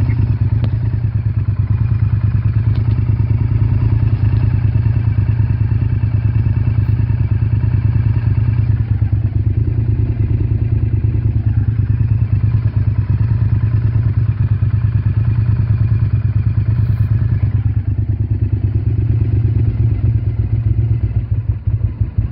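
Honda VTR V-twin motorcycle engine running steadily with an even, throbbing pulse. The engine has a vacuum leak, which the owner names as the cause of its running problems.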